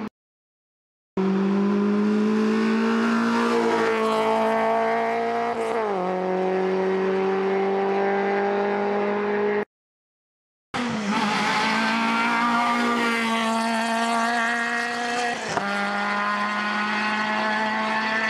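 Hillclimb race car engines running hard uphill: the engine note climbs steadily, drops sharply at an upshift, and climbs again, in two passages. The sound cuts to silence for about a second at the start and again near the middle.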